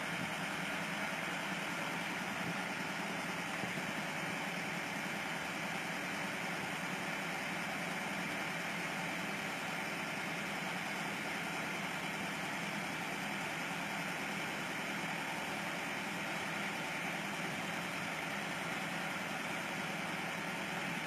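Massey Ferguson 385 tractor's four-cylinder diesel engine running steadily at a low, idle-like speed.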